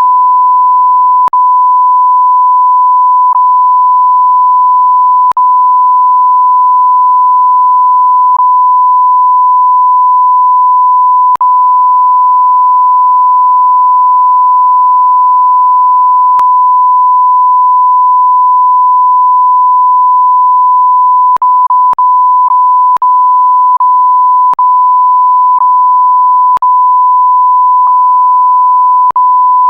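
Censor bleep: one steady, high pure beep tone, broken now and then by short clicks where it cuts out and restarts, a few at first and several in quick succession near the end.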